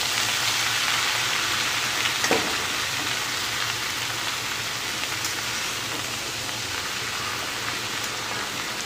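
Shredded cabbage sizzling as it is stir-fried in hot mustard oil in a kadhai: a steady frying hiss that eases a little, with a couple of light clicks about two and five seconds in.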